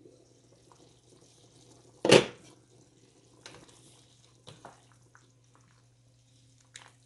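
A glass lid is taken off a pot of soup, with one loud clatter about two seconds in. Then a wooden spoon stirs the soup, with liquid sloshing and a few light knocks against the pot. A low steady hum runs underneath.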